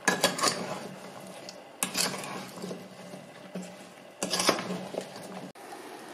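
Wooden spoon stirring sliced quince and sugar in a stone-coated pot, scraping and knocking against the pot in three bursts over a steady low hum. About five and a half seconds in it cuts to a steady patter of rain.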